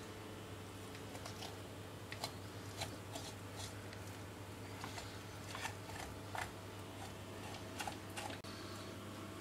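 A knife cutting through a hake's flesh and backbone, making short, irregular clicks and crunches against a plastic chopping board, over a steady low hum.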